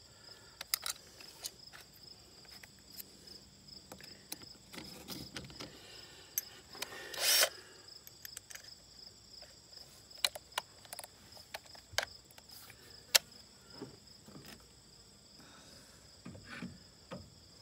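Steady high insect chirring, like a cricket, with scattered sharp clicks and light rattles of tools being handled and a brief louder scraping burst about seven seconds in.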